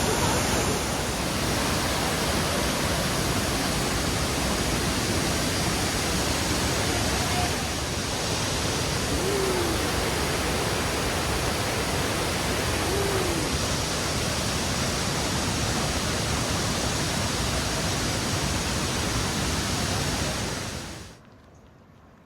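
Steady rushing roar of Iruppu Falls, water pouring down in a monsoon-swollen cascade; it cuts off suddenly near the end.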